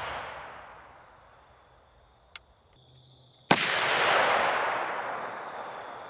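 .308 Winchester rifle shot at a steel fire extinguisher, its sharp crack about three and a half seconds in followed by a long rushing tail that fades over about three seconds. Before it, the tail of an earlier shot dies away, and there is a small click about two seconds in.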